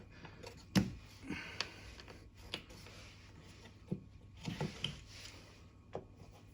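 Scattered sharp clicks and light knocks of hard plastic and a screwdriver as the charging socket cover is pressed and pried at its locking tabs. The loudest click comes about a second in, and a short cluster follows near the end.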